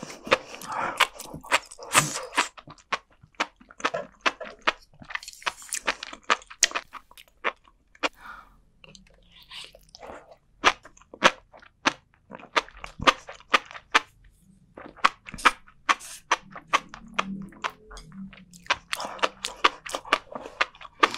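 Close-miked chewing of flying fish roe and sea grapes: a dense run of small sharp pops and crunches, with brief lulls.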